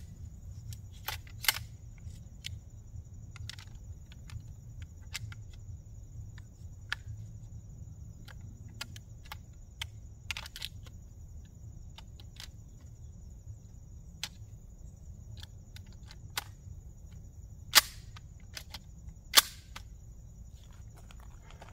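Beretta 1301 semi-automatic shotgun being loaded with 12-gauge slug shells: scattered metallic clicks as shells are pushed into the magazine tube and action, with two sharp loud clacks about a second and a half apart near the end.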